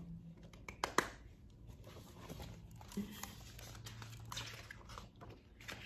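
A few short, sharp taps and knocks from hands and a hardcover picture book, the sharpest about a second in, over a quiet room with a faint low hum.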